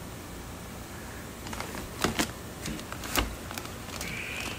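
Plastic fish-shipping bags and cardboard box flaps being handled: a few sharp crinkles and taps, mostly around the middle, over a low steady hum.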